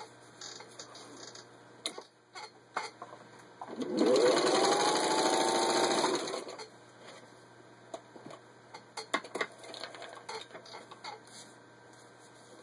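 Singer 15-91 sewing machine's electric motor starting about four seconds in, rising quickly in pitch and running for about two and a half seconds while it stitches through four layers of vinyl upholstery, then stopping. Before and after come scattered light clicks and knocks of handling the machine and fabric.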